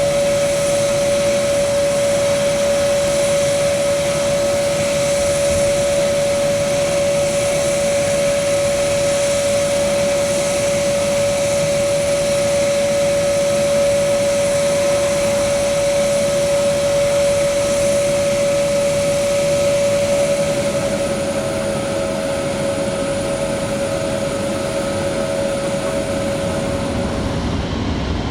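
Jet airliner engines running steadily at idle: a continuous whine on one steady tone over a rushing noise. The whine cuts off shortly before the end.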